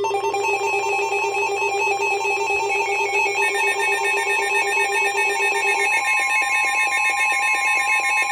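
Emergency alert tones: several steady electronic tones at once, one warbling between two pitches a few times a second. About six seconds in, the lowest tone stops and a steady tone a little higher up grows stronger.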